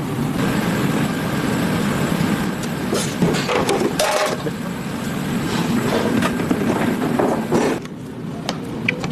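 Busy kitchen noise: a steady low rumble with scattered knocks and clatter of food preparation, the rumble easing about eight seconds in.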